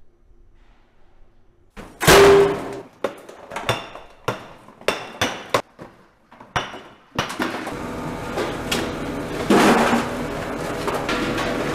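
Hand hammers striking lumps of fused roasted bamboo salt in a steel basin: about ten sharp, ringing knocks over some five seconds. From about seven seconds in, a steady, dense rattling noise with a hum takes over, as broken salt chunks are worked in a metal hopper.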